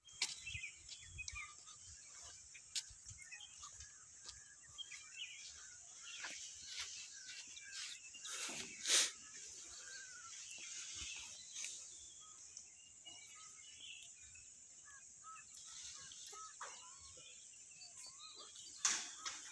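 Outdoor ambience of small birds chirping over a steady high-pitched hiss. Two brief louder noisy bursts break in, the loudest about halfway through and another near the end.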